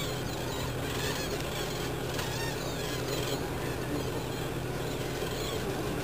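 A flock of cranes calling: many overlapping honking, trumpeting calls, on and on, over a steady low hum.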